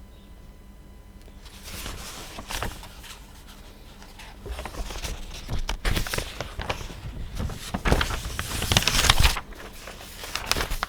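Irregular rustling and handling noise, scrapes and light knocks, starting about a second and a half in and loudest around eight to nine seconds in.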